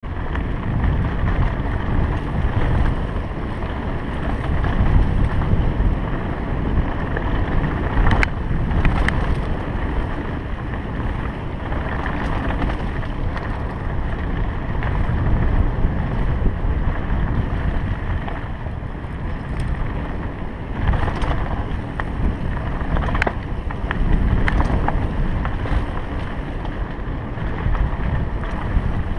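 Wind buffeting the microphone of a mountain bike riding fast down a dirt singletrack, over the rumble of the tyres on the dirt. A few sharp rattles and knocks come from the bike as it hits bumps.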